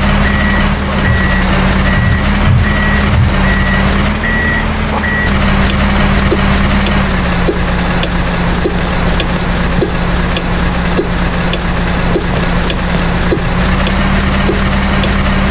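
A heavy diesel vehicle's engine running steadily while its reversing alarm beeps about once every 0.7 seconds, stopping about five seconds in. After that, faint regular clicks continue over the engine.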